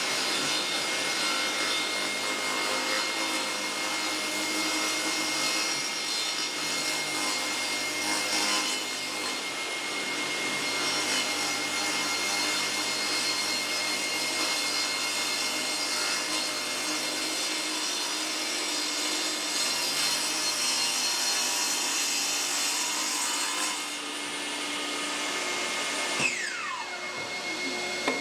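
Table saw running, its blade cutting a shallow rebate along a plywood fence piece in a couple of passes, with a steady motor whine. Near the end there is a click and the whine falls in pitch as the blade spins down.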